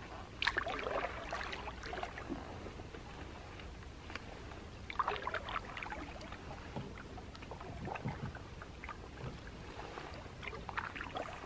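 Canoe paddle strokes in calm water: a few soft dips and pulls a few seconds apart, with water splashing and trickling off the blade.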